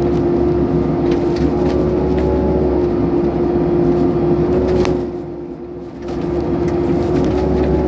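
8-ton excavator's diesel engine and hydraulics running steadily under work, with a constant whine over a low hum; the level drops briefly about five seconds in, then picks back up.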